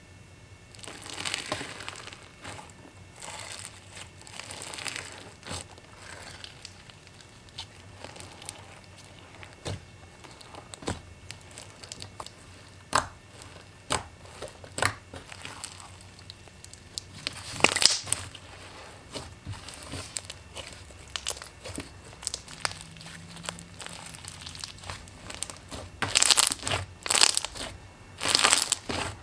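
Crinkling and crunching of a material being squeezed and crushed, with scattered sharp clicks and pops and a louder run of crunches near the end.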